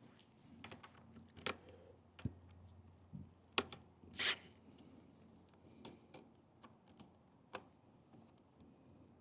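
Hand tools and bike parts being handled while fitting a disc brake caliper: scattered light clicks and taps, one sharper click about three and a half seconds in and a short scrape just after.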